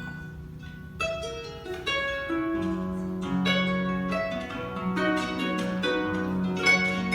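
Solo guitar playing a song's opening: a note rings and fades, then about a second in picked notes start over sustained low notes.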